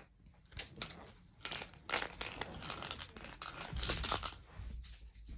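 Plastic wrapping of a 5 Surprise Mini Brands capsule being crinkled and torn open by hand, in a quick run of rustling bursts, with a dull bump about four seconds in.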